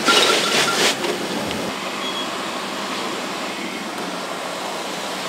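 Steady rushing noise of fire hoses and running pumps, with a loud hiss lasting about the first second.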